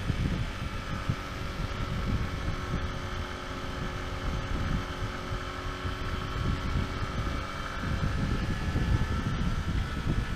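Motorcycle running steadily while ridden, under heavy wind buffeting on the helmet microphone.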